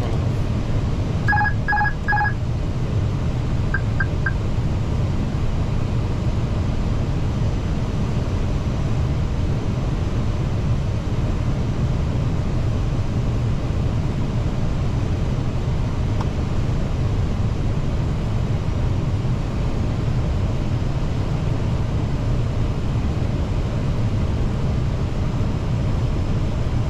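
Steady low rumble of airflow and engines in an Airbus A320 cockpit on approach. About a second in come three short electronic beeps from the flight deck, and a moment later three fainter short ticks.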